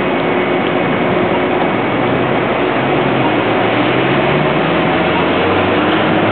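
Street traffic: a steady noise of vehicle engines and tyres, with one heavy engine rising slightly in pitch around the middle.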